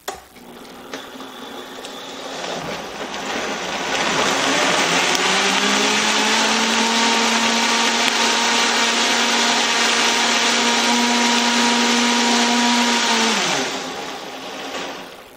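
Countertop blender blending a smoothie: it starts slowly, speeds up over the first few seconds to a steady high-speed run, then winds down and stops near the end.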